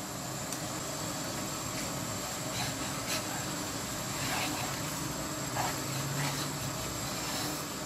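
Spatula stirring ghee into dry flour in a nonstick kadai, with a few soft scrapes against the pan over a steady background hiss.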